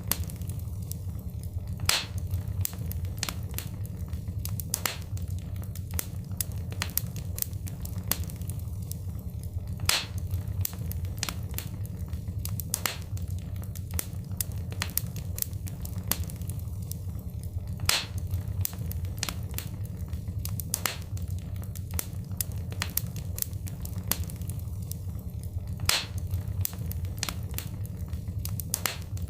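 Wood fire crackling in a fireplace: a steady low rumble of flames with many sharp snaps and pops, the loudest pops coming about every eight seconds.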